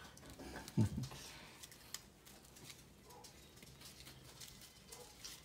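Light rustling and crinkling of a small jewelry bag and its wrapping being handled and opened by hand, with scattered faint clicks and a brief low thump about a second in.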